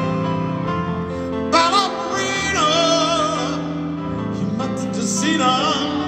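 Live concert music in an arena: sustained piano and keyboard chords, joined about a second and a half in by a sung vocal line with wide vibrato, which returns briefly near the end.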